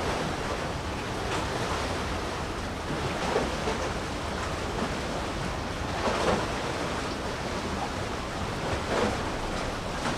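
Sea waves washing and splashing under a steady rush of wind and water noise, with three brief louder splashes about three seconds apart.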